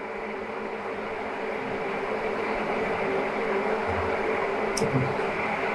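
Steady mechanical hum with an even hiss: room background noise from a running machine such as a fan.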